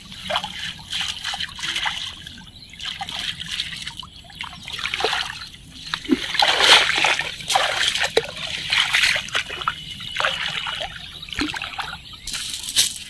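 Water splashing and dripping as a wet cast net is gathered and lifted out of shallow water, in irregular bursts that are loudest about halfway through, then splashing from wading steps near the end.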